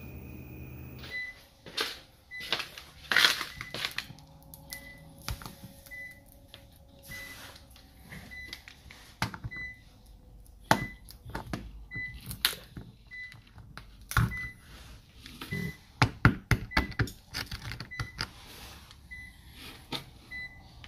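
Sharp plastic clicks and knocks as a screwdriver pries round plug caps out of a walk-in freezer's insulated wall panel, the loudest of them clustered in the second half. Behind them a short high electronic beep repeats steadily, roughly twice a second.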